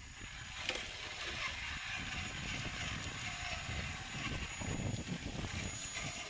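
Traxxas TRX-4 RC crawler's small electric motor and geared drivetrain whirring, with its tyres scraping and clicking over rock.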